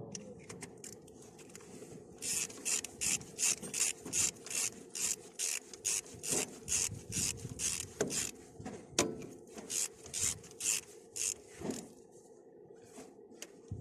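Hand-tool work on metal: quick, even rasping strokes, about two to three a second, that start a couple of seconds in and stop near the end.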